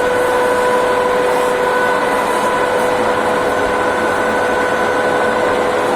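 Metal lathe running with its spindle engaged, a loud steady whine from the motor and gear train over a mechanical hum, its electrics just repaired and working.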